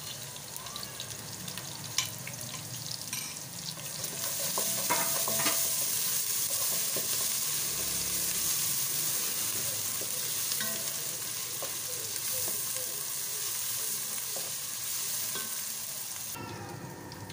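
Sliced onions and ground garlic-ginger paste sizzling in hot oil in an aluminium pressure cooker, stirred with a wooden spatula that clicks against the pot now and then. The sizzle grows louder about four seconds in and drops back near the end.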